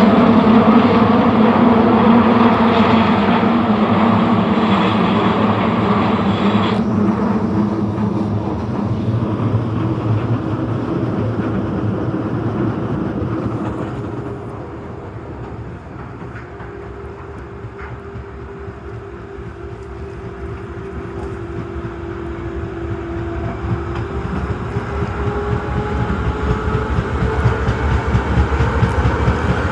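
Osaka Metro Tanimachi Line 22 series subway train running. Its noise eases off toward the middle, and in the last few seconds the motor whine rises in pitch as the train gathers speed.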